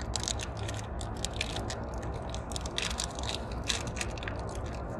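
A crinkly plastic toy packet being torn open and scrunched by hand, giving dense, irregular crackling. A steady low rumble from the car cabin runs underneath.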